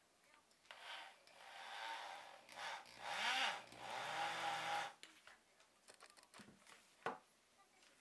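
Handheld rotary tool with a cone-shaped bit grinding a hole into a short length of tree branch, a grinding whine for about four seconds whose pitch sags and recovers as the bit bites. A single short knock follows near the end.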